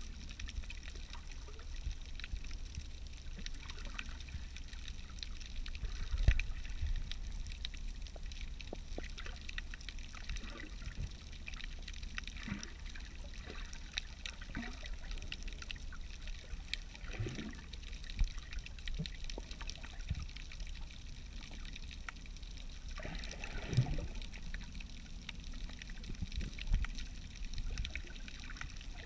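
Underwater sound picked up by a submerged camera: a steady low water rumble with many faint scattered crackles and clicks, and two brief gurgles in the second half.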